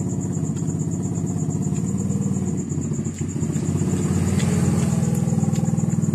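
An engine running steadily with a rapid even putter, a little louder from about four seconds in.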